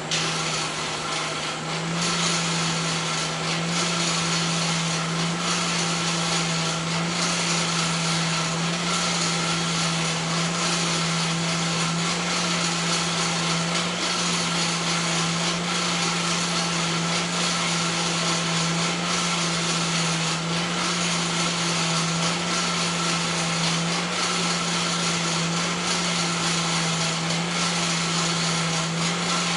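An electric motor-driven machine starts up, reaches full speed in about two seconds, then runs steadily with a loud hissing rush over a steady hum.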